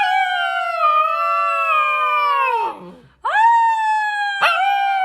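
A dog howling, high-pitched: one long howl holds its pitch, then sinks and trails off about three seconds in. A second howl swoops up right after and is still going at the end.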